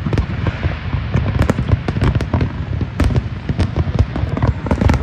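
Large aerial fireworks display: a dense barrage of shell bursts, several bangs a second over a continuous low rumble, with crackling between the bangs.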